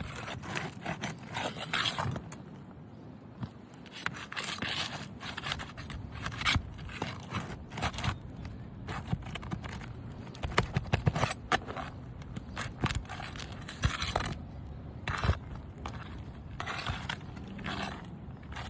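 Brittle asphalt roof shingles being scraped and pried apart to unseal them and reach the nails, in irregular scraping strokes with sharp clicks and crackles.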